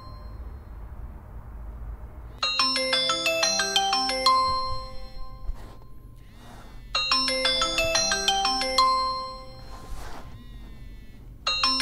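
Smartphone ringing with a marimba-style ringtone: a quick run of bright mallet notes that starts about two seconds in and repeats three times, with short pauses between, each pause broken by a brief noise.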